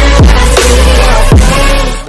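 Loud electronic intro music with a heavy bass line and two quick downward-sliding sweeps.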